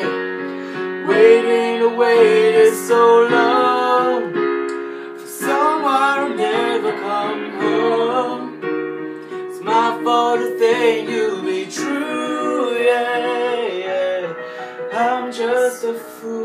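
A woman and a man singing a slow pop ballad duet, accompanied by piano chords on an electric keyboard.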